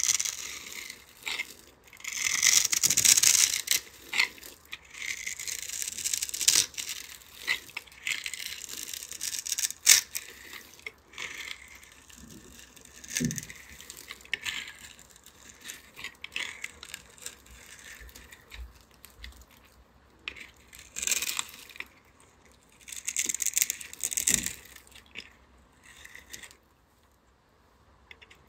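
Utility knife blade slicing through a bar of soap scored into a grid of small cubes, the cubes shearing off in bursts of scraping strokes with short pauses between.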